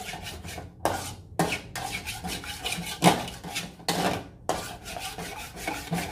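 A spoon scraping and knocking against a pan, stirring sugar as it melts and darkens into caramel: repeated scraping strokes at an uneven pace, with a few sharper knocks.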